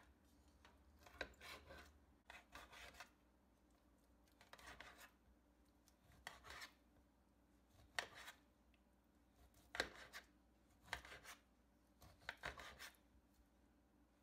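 Knife slicing raw chicken breast in a glass baking dish, the blade scraping and tapping on the glass with each cut. About eight faint strokes come a second or two apart, a few with a sharp tick.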